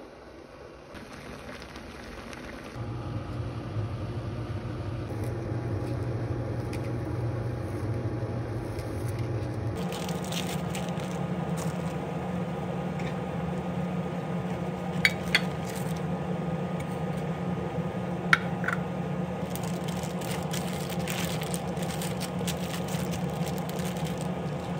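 Steady hum of a kitchen appliance that steps up in level about three seconds in and shifts to a higher pitch about ten seconds in. Plastic bags crinkle and click as they are handled, with a few sharp clicks.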